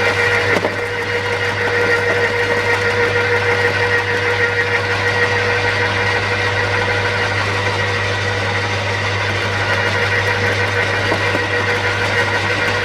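Ryobi chipper shredder running steadily with a constant hum and a whine, a brief knock about half a second in.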